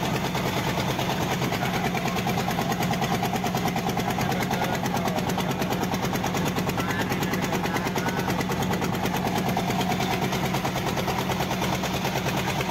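Small wooden fishing boat's engine running steadily, with a fast, even beat.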